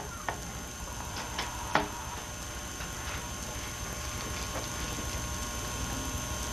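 Quiet room tone under a steady tape hiss and hum, broken by a few faint knocks, the clearest a little under two seconds in.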